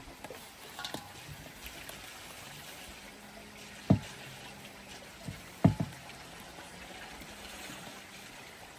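Water sloshing and dripping in an enamel basin as a stuffed, twine-tied pig's stomach is washed and lifted out. Two sharp knocks, about four and six seconds in, are the loudest sounds.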